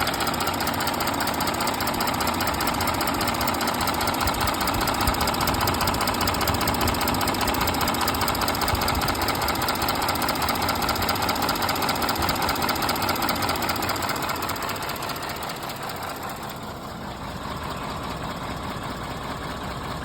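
Audi Q7 4M engine running with a rapid, even knocking from the camshafts, which the owner blames for the noise at 200,000 km. The sound gets quieter about fifteen seconds in.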